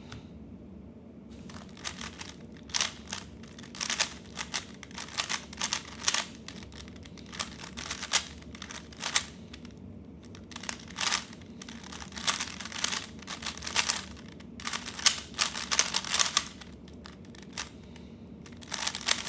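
3x3 Rubik's cube turned rapidly during a timed speed solve: quick runs of plastic clicking and clacking from the turning layers, broken by short pauses between runs of turns.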